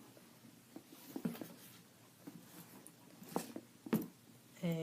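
Soft rustling and a few light clicks and taps from a canvas-and-leather backpack being handled and opened up.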